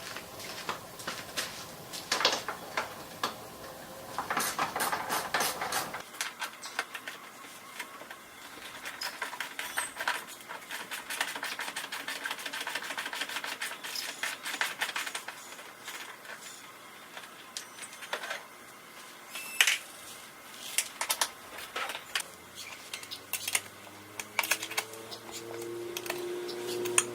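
Hand wrenches and sockets clicking and clinking on the golf cart's rear seat bolts, with runs of rapid clicking as bolts are turned out, and scattered sharp metal knocks.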